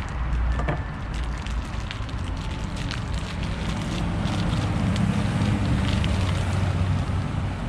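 Plastic vacuum-pack wrapping around a raw pork loin crinkling and crackling as gloved hands work the meat out of the bag, over a low rumble that gets stronger in the second half.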